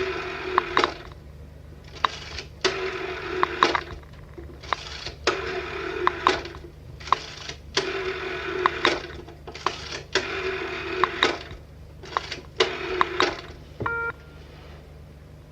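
Old telephone's mechanical bell ringing in rattling double rings, a pair about every two and a half seconds, ending near the end with one short clear ding.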